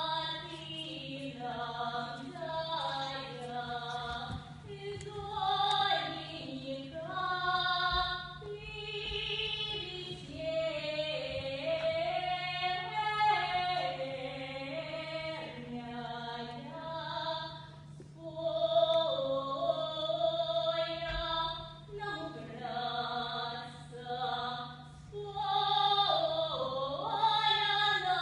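A woman singing a Russian folk song in long phrases, sliding between notes.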